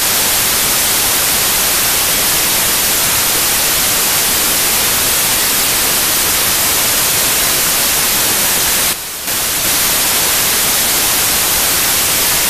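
Loud, steady white-noise static hiss, with a brief drop in level about nine seconds in.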